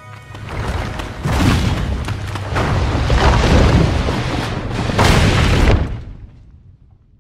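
Heavy rumbling and crashing of falling rock and debris as a cave collapses, in several loud surges, then dropping away shortly before six seconds in.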